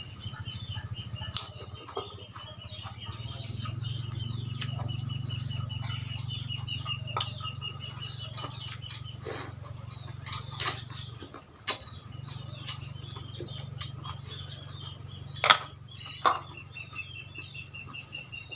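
Close-up eating sounds: chewing with scattered sharp clicks and crunches, two of them much louder, about halfway through and near the end. Under them run a steady low hum and a rapid high chirping in the background.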